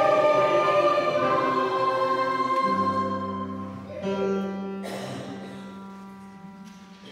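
End of a church hymn: voices singing with instrumental accompaniment stop about two and a half seconds in. A last chord is held about four seconds in and slowly fades away.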